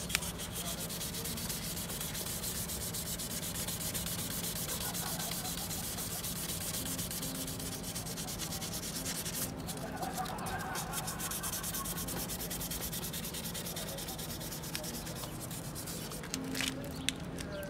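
Wet sandpaper rubbed in quick, short strokes over the plastic headlight lens of a Mitsubishi Lancer Evolution X, with a short break about halfway and a few light clicks near the end. The sanding cuts away the yellowed, oxidised surface and leaves the lens frosted white.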